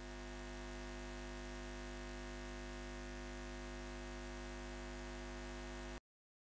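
A faint, steady hum made of several held tones, which cuts off suddenly about six seconds in and leaves dead silence.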